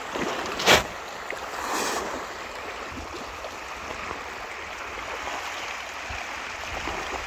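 Water splashing and churning as a dense shoal of fish thrashes at the surface of a pond, a steady rushing patter, with one sharp sudden crack about a second in.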